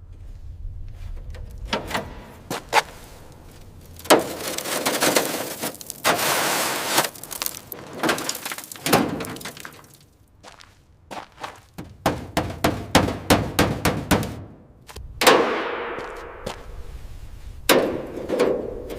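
Metal clanging and knocking in a workshop: a string of sharp strikes, some ringing on after the blow, with long hissing stretches in between.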